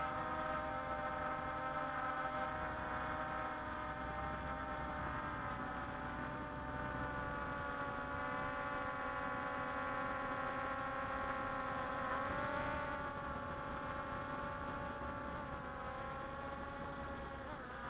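Walkera Scout X4 quadcopter's motors and propellers buzzing steadily, heard close up from its onboard camera. The pitch shifts a little about twelve seconds in and again near the end as the drone manoeuvres.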